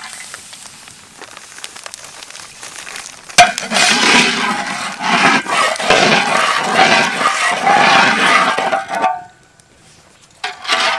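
A metal spatula scraping and stirring dry flour around the bottom of a large metal wok: a clank about three and a half seconds in, then dense scraping, which pauses briefly near the end and starts again. Before it, a softer hiss of flour being poured from a plastic bag into the wok.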